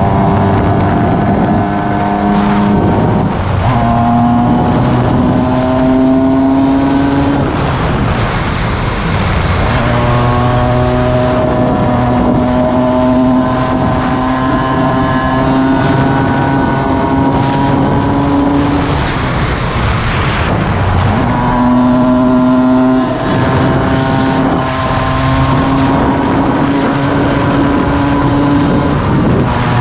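Cagiva Mito EV 125's two-stroke single-cylinder engine running hard under throttle, its note climbing slowly and shifting or breaking about four times as the rider changes gear and eases off for bends, over a rush of wind.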